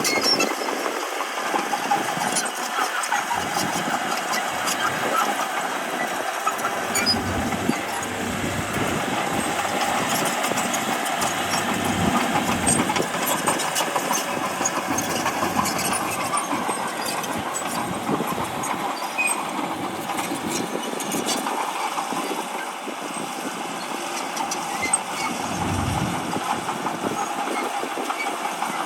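Komatsu D31P crawler bulldozer's diesel engine running under work, with frequent metallic clanks and rattles throughout.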